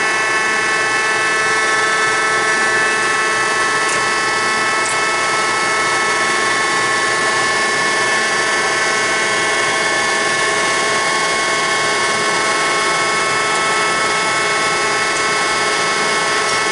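Marvel Model 81 vertical bandsaw running steadily under power, a continuous whine of several steady tones over the hum of the machine.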